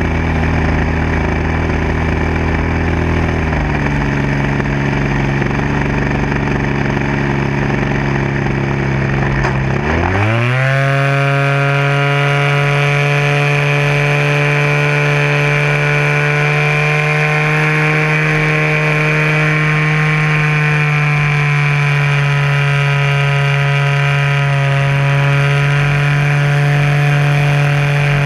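DLE-20, a 20 cc single-cylinder two-stroke gasoline engine, running in flight on an RC aerobatic plane, heard close up from a camera on the airframe. It runs at part throttle, then about ten seconds in the pitch rises quickly as the throttle opens, and it holds a higher, steady note.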